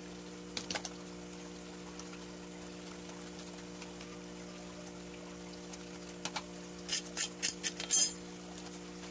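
Short clicks and knocks of a plastic bottle and a metal spoon being handled as crushed snail is put into the bottle: a couple about half a second in, then a quick run of six or seven sharper ones near the end. Under it runs a steady low hum.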